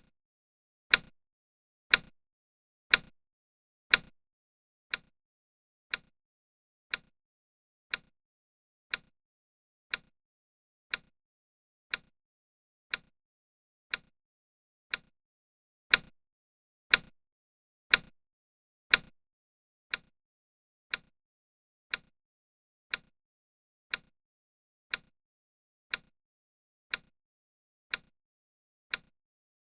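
Countdown timer ticking once a second: sharp, even clock-like ticks with silence between. A few stretches of ticks are louder than the rest.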